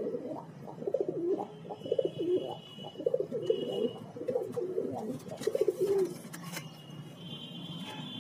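Domestic pigeons cooing, a run of low, throaty, repeated coos that stops after about six seconds.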